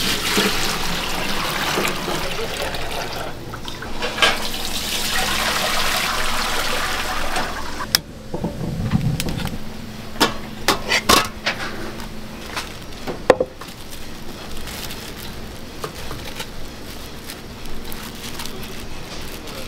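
Liquid pouring in a steady stream from a large wok into a compartmented stainless steel steam tray for about eight seconds. Then a handful of sharp metal clinks and knocks as food is set into a perforated stainless steamer basket.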